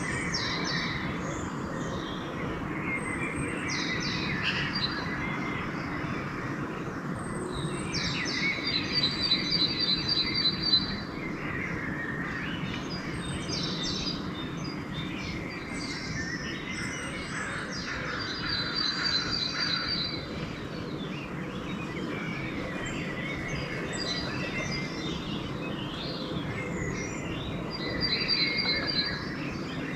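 Dawn chorus of several songbirds singing over one another, one repeating a high, rapid trill about every ten seconds, over a steady low background rumble.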